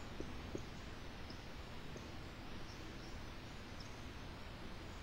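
Faint, steady classroom room tone with a few very short, high chirps scattered through it.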